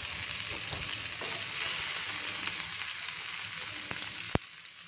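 Ghee sizzling in a frying pan with cumin seeds, chopped ginger and green chilli frying in it: a steady hiss with small pops. A single sharp click comes near the end, and the sizzle then drops away quieter.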